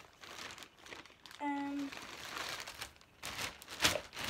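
Rustling and crinkling of a white drawstring bag being handled, with a sharp rustle near the end as it is lifted by its cords. A short hum from a girl comes about a second and a half in.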